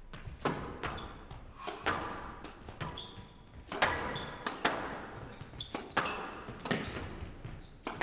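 Squash rally: rackets striking the ball and the ball cracking off the walls and floor, a dozen or so sharp hits at an uneven pace, echoing in the hall. Short squeaks from court shoes come in between.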